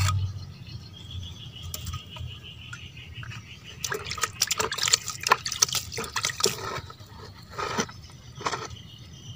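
Water splashing and trickling as it is poured from a plastic basin onto soil, in a quick run of splashes from about four seconds in until six and a half, with a couple of small splashes after.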